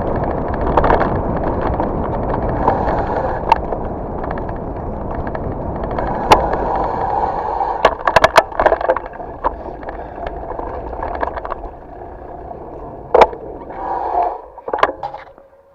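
Merida Matts mountain bike rolling along a dirt forest trail: a steady rolling noise from the tyres and frame, broken by sharp knocks and rattles as it goes over bumps, a cluster of them about eight seconds in. The rolling sound drops off after about twelve seconds as the bike slows.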